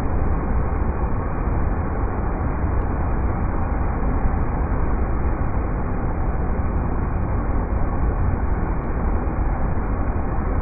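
River rapids rushing steadily, a deep, even roar of water with no breaks.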